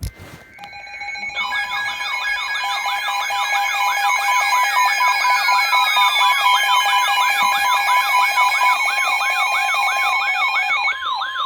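Several electronic alert sounds layered at once: steady alarm tones, a fast warbling siren sweeping about three times a second, and a couple of tones gliding slowly downward. They build up over the first second or so and then hold steady.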